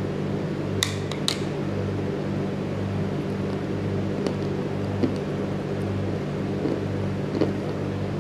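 Teeth biting into a piece of baked clay pot lid: two sharp crunches about a second in, then a few faint crunches of chewing. A steady low mechanical hum runs underneath.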